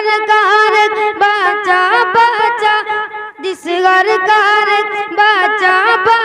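A young boy singing an Urdu devotional manqabat without accompaniment, drawing out long, wavering, ornamented notes, with a short breath about three seconds in.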